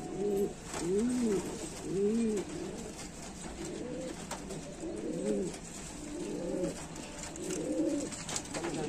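Pigeons cooing, a repeated rising-and-falling coo about once a second, several birds overlapping toward the end.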